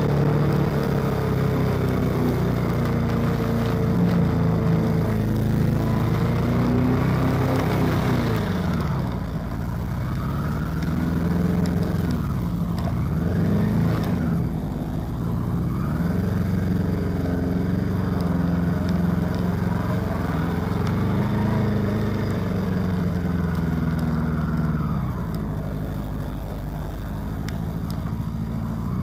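Honda CB400 motorcycle engine running at low speed in stop-and-go traffic, its pitch rising and falling again and again as the throttle is opened and closed.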